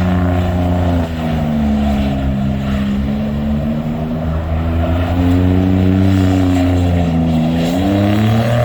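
Car engine running under varying throttle, its pitch sagging and rising slowly as the revs change, with a deeper dip and climb back near the end.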